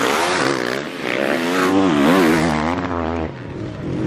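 Motocross race bike engine revving hard, its pitch rising and falling rapidly as the throttle is worked, then falling away a little past three seconds.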